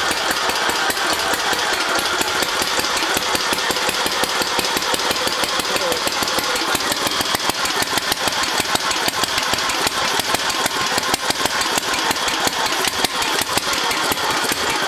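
Newly rebuilt Briggs & Stratton engine on a garden tractor running steadily just after start-up, an even, rapid firing beat; the owner says it still needs a little adjusting.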